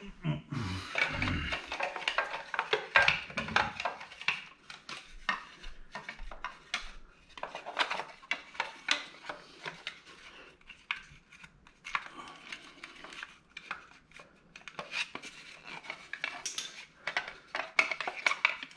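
Irregular clicks, taps and rubbing as hands work a spark plug cap and cover into place around the ignition coils on a Yamaha Virago.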